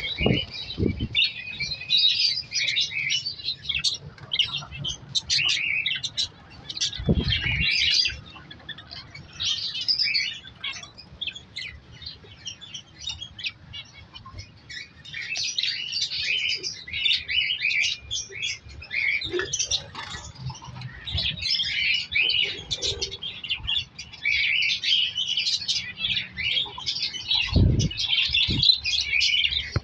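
A flock of budgerigars chattering and chirping rapidly, dying down for a few seconds about a third of the way in before picking up again. A few dull thumps sound near the start, about seven seconds in and near the end.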